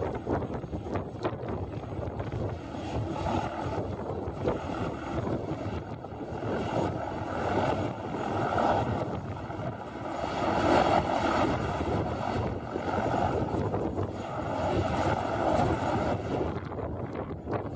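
Eurocopter AS350B2 helicopter's turbine engine running during start-up, its main rotor turning slowly, mixed with gusting wind on the microphone; the level swells and falls with the gusts.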